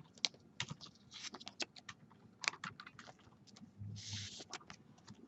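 Faint, irregular clicks and taps of trading cards being handled and flipped through, with a brief soft rustle about four seconds in.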